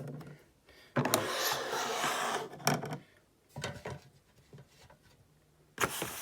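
Objects being handled on a table: a rustle lasting about two seconds, then a few light clicks and knocks, and another click with rustling near the end.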